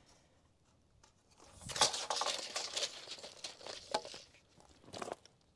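Crinkly scraping and rustling, made of many small clicks, for about three seconds starting about a second and a half in, then a shorter scrape near the end.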